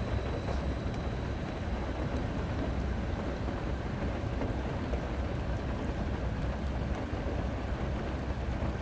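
Steady low rumble with an even hiss over it and no distinct events, as heard from inside a stationary car in the rain: the engine idling and rain on the bodywork.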